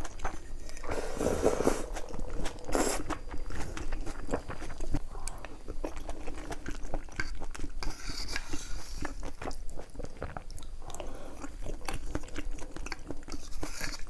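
Close-miked eating: a person biting into and chewing food, with many small crisp crunches and clicks throughout and a few louder crunchy bites in the first few seconds.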